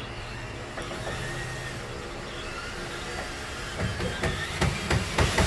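Power drill driving a drywall screw into wood framing, with a steady motor hum that turns into a louder, rapid rattling from about four seconds in.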